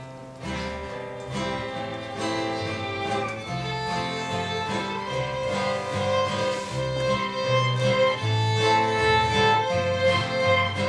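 Live country duo playing a song's instrumental introduction: fiddle carrying the melody in long held notes over guitar accompaniment, starting about half a second in and growing louder.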